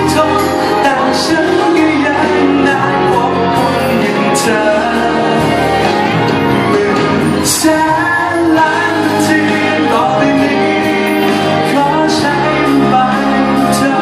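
A man singing a Thai pop song live into a microphone over backing music, played through the PA in a large hall.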